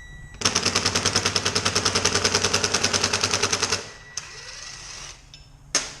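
Impact gun with an Allen-bit reducer hammering in a rapid, even rattle for about three and a half seconds, backing out a brake-rotor bolt. A single sharp click comes near the end.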